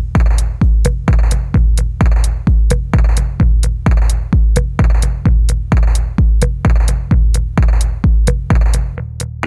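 Electronic music with a drum-machine beat: heavy bass kicks about twice a second under sharp clicking hits. The bass drops out near the end.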